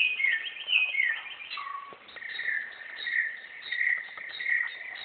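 Bare-throated whistler (garugiwa) singing. It opens with a quick run of notes, each sliding down in pitch, then from about two seconds in gives a steady string of short whistled notes, about one every two-thirds of a second.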